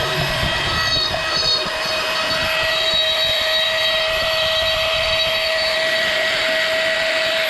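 An electric power tool running at steady speed, with a constant high-pitched whine from its motor and a rough cutting hiss over it.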